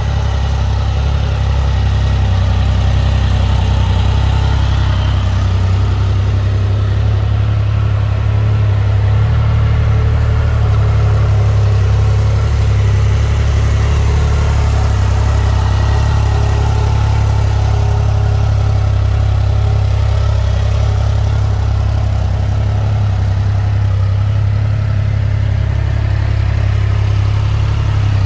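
Triumph Rocket 3R's 2,458 cc inline-three engine idling steadily, a deep, even hum with no revs.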